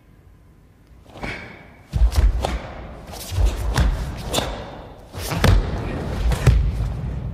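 Karate kata performed at speed: bare feet thudding and stamping on the mat, with sharp snaps of the cotton gi at each technique. They come in quick clusters starting about a second in.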